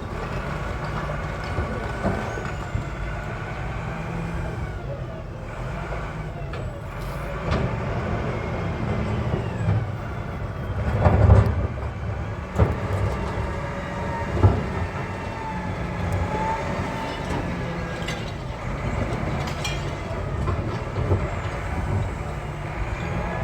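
A heavy diesel engine running steadily, with a few heavy thuds or knocks near the middle, the loudest a little past halfway.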